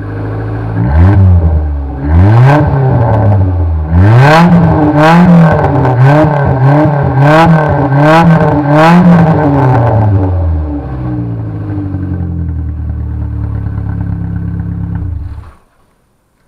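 Exhaust of a 1996 Volkswagen Polo 6N with the rear silencer (backbox) removed: the engine idles, is blipped twice, then revved in a quick run of about six blips before settling back to idle. About a second before the end the engine is switched off and the sound cuts out suddenly.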